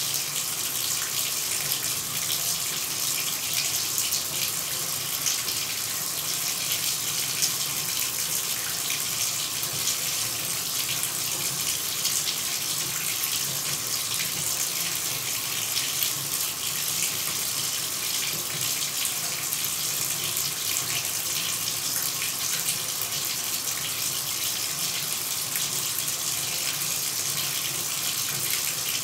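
Shower running: a steady, even hiss of falling water, brightest in the high range and unchanging throughout.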